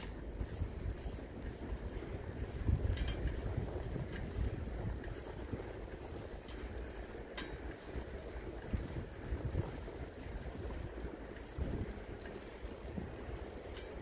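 Bicycle riding on a paved path: a steady low rumble of wind on the microphone and tyres rolling, with a couple of light clicks from the bike.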